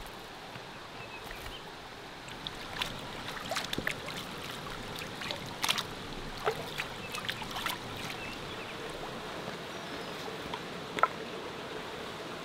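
A river running steadily, with scattered light clicks and knocks over it; the sharpest knock comes near the end.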